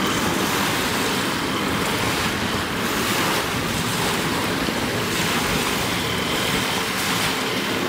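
Small waves breaking and washing up over a pebble beach, with wind buffeting the microphone.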